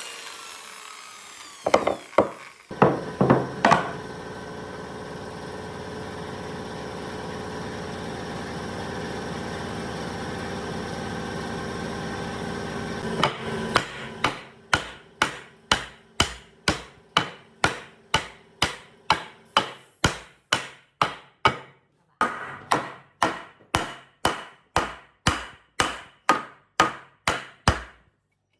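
A power tool's motor runs steadily for about ten seconds after a few knocks. Then a hammer strikes wood in an even rhythm, nearly two blows a second, with a short pause midway.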